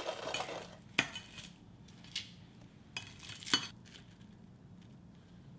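A few light knocks and clinks of a ceramic serving plate on a granite countertop as doughnuts are handled on it. The two clearest come about a second in and a little past the middle.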